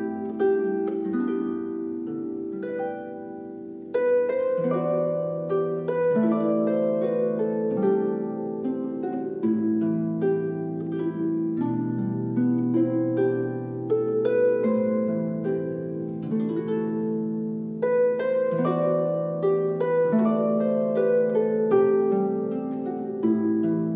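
Slow instrumental background music: a flowing run of plucked-sounding notes over held low notes. It softens just before 4 seconds in, then a new phrase comes in.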